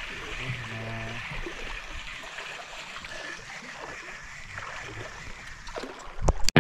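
Shallow seawater lapping and trickling over a rocky reef flat, a steady wash of noise. In the last second there are a few loud knocks and a rumble close to the microphone.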